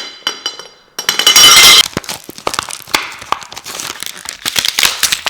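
Plastic packaging crinkling and rustling, loudest in a burst about a second in, with scattered light clicks and clinks of chair parts being handled.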